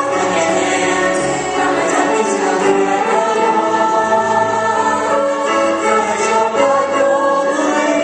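Stage-musical cast singing together as a chorus, several voices holding sustained notes.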